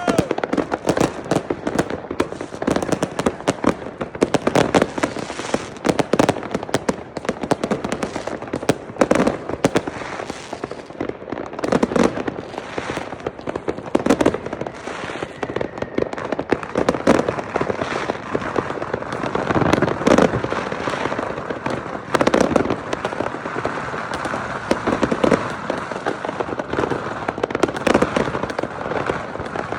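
Many consumer fireworks and firecrackers going off at once across a neighbourhood: a continuous barrage of bangs and crackling, with no pause.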